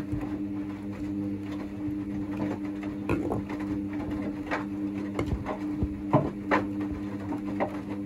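Hoover DXA front-loading washing machine drum turning during the second rinse: a steady motor hum, with irregular thuds and splashes as the wet laundry drops and water sloshes in the drum.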